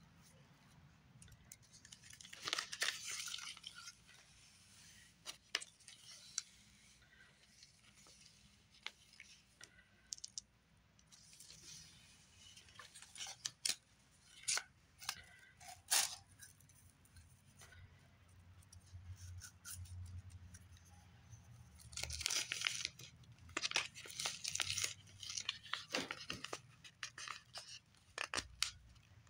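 Clear plastic and cellophane packaging crinkling and rustling as small craft supplies are handled, in scattered bursts with small clicks and taps.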